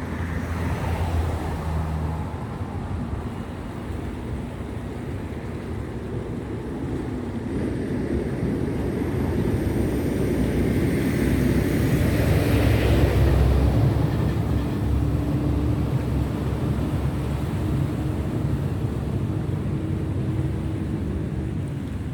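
Large cargo ship passing close by: a deep, continuous engine rumble with low steady hum tones, swelling to its loudest about halfway through, then easing off.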